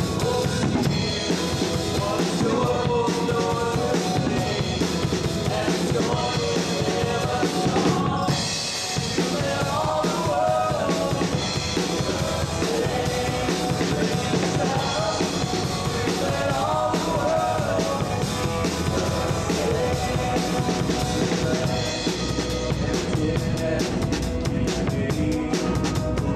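Live worship band music: electric bass guitar with a drum kit keeping a steady beat, other band parts in the mix. The music dips briefly about eight seconds in.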